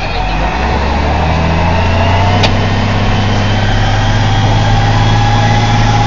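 Farm tractor's diesel engine running steadily, its note picking up about half a second in and holding, with a faint slowly rising whine; a single sharp click about two and a half seconds in.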